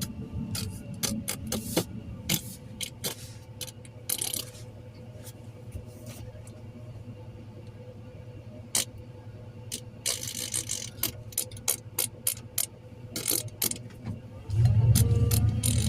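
Inside a vehicle moving through a parking lot: scattered clicks and rattles over a low engine rumble. The rumble swells up sharply near the end.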